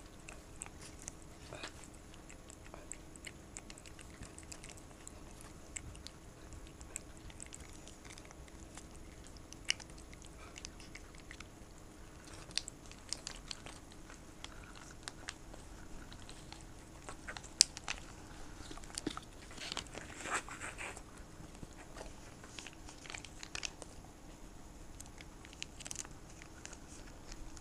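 A cat and a corgi licking and smacking at a squeeze-tube pet treat held by hand: short, irregular mouth clicks, with a busier spell about twenty seconds in.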